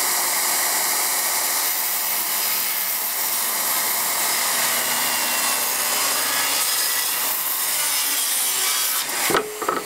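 Handheld electric circular saw running under load as it cuts through a wooden board, a steady, loud whine and rasp. The saw stops about nine seconds in, followed by a couple of short knocks.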